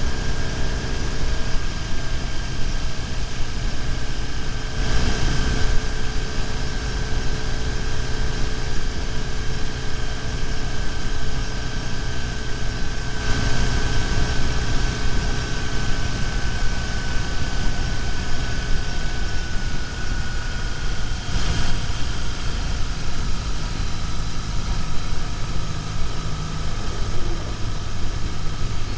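BMW R1150GS motorcycle's boxer-twin engine running at a steady cruise, under a steady rush of road and wind noise, with a high whine that slowly sinks in pitch. Three brief swells of noise come about 5, 13 and 21 seconds in.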